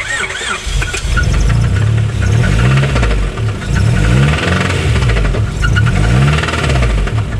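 Honda Prelude's H22 2.2-litre VTEC four-cylinder engine running and being revved up and down several times, with a knocking clatter, which the owner suspects is rod knock or a jumped timing belt.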